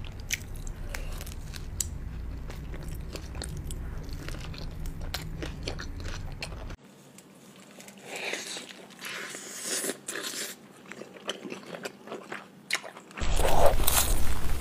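Close-miked eating sounds: biting into and chewing wrapped flatbread such as shawarma, with many short crunches and mouth clicks. The character changes abruptly about seven seconds in, where a low hum drops out, and the sound gets louder near the end.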